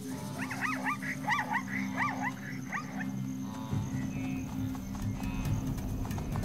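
A quick run of about eight high yelping animal calls, each rising and falling in pitch, over a steady music bed; they stop about three seconds in.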